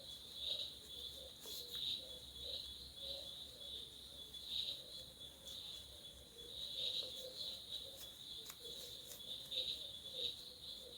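Insects, crickets by their sound, trilling steadily in the background: a continuous high chirring that swells and fades every second or so, with a few faint clicks.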